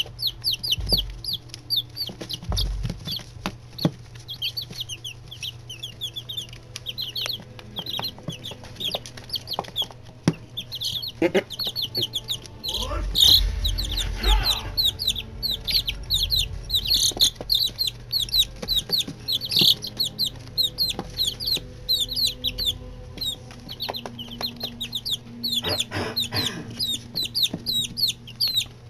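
A group of young chicken chicks peeping continuously, many quick high-pitched cheeps overlapping, with scattered light taps. A steady low hum runs underneath, and about thirteen seconds in a louder rustling bump lasts for a second or so.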